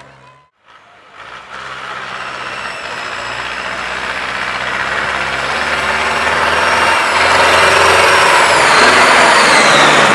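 Large red Zetor tractor's diesel engine running hard as the tractor drives closer, growing steadily louder, its pitch falling near the end.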